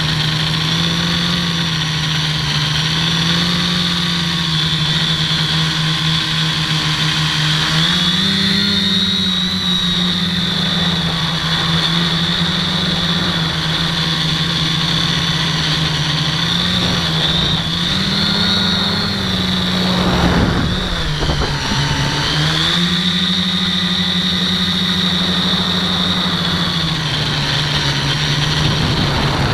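Electric motors and propellers of a HobbyKing Dead Cat FPV quadcopter whining in flight, heard through its onboard camera. The pitch steps up and down as the throttle changes, with a brief rush of noise and a drop in pitch about twenty seconds in.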